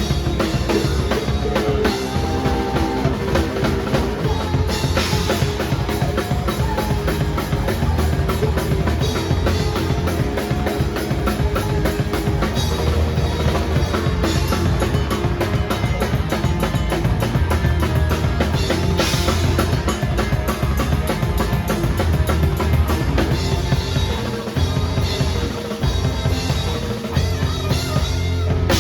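Drum kit played along with a song: steady, driving bass drum and snare with cymbals over the full band track.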